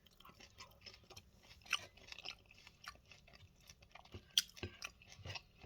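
Someone chewing tortilla-chip nachos topped with melted cheddar and salsa: soft, irregular crunches, a few sharper ones in the second half.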